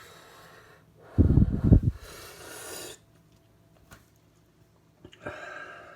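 A man breathing hard through his mouth against the burn of a superhot chili: a loud snorting blast about a second in, a hissing breath right after, and another breath near the end.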